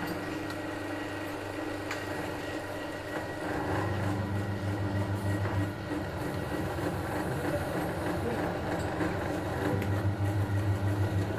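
Steady low mechanical hum like a running motor or engine, swelling louder twice: about four seconds in and again near ten seconds.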